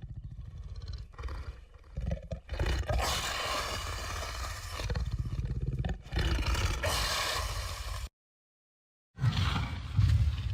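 Designed monster roars layered from animal recordings such as bear, wild boar, pig, lion and tiger: a run of rough roars and growls that swell and dip, cut off suddenly about eight seconds in, then one shorter roar a second later.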